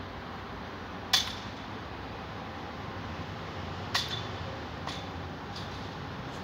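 A few sharp metallic clinks over a steady background hiss: the loudest about a second in, a second one about four seconds in, and fainter ones after.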